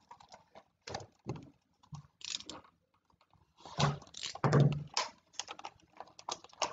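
Irregular light clicks, taps and rustles of hands handling a cardboard game box and bagged plastic components on a tabletop, densest about four seconds in.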